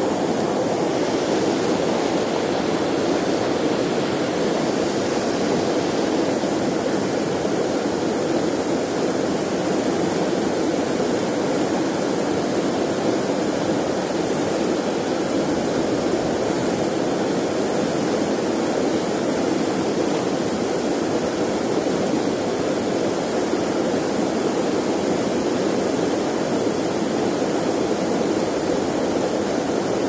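Mountain river rushing over boulders in a small white-water cascade: loud, steady water noise.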